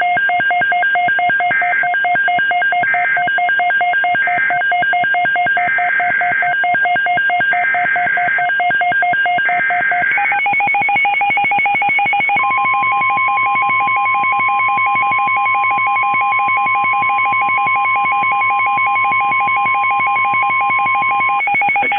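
NOAA Weather Radio alert tones: several short squawking bursts of a SAME data header in the first half, then the steady 1050 Hz warning alarm tone for about nine seconds. Under them runs a fast pulsing electronic multi-tone beep that shifts pitch about ten seconds in.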